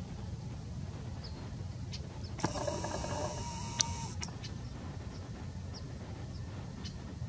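A camera's zoom motor whirring for about two seconds, starting with a click a couple of seconds in, over a steady low outdoor rumble and faint, scattered short bird chirps.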